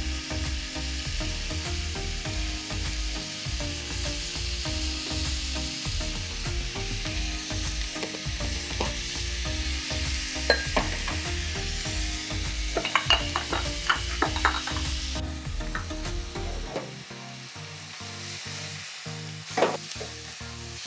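Chopped red onions and ground spices sizzling in hot oil in a stainless steel pan, with a steady crackling hiss. A few light clicks and knocks come in the middle, and the sizzle turns quieter about three-quarters of the way through.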